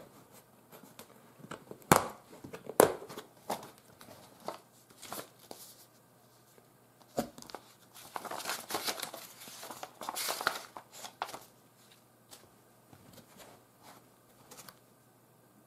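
Two sharp snaps from the latches of a hard plastic pistol case being opened, about two seconds in, followed by small clicks of handling. In the middle, a few seconds of paper rustling and crinkling as a folded instruction leaflet is handled.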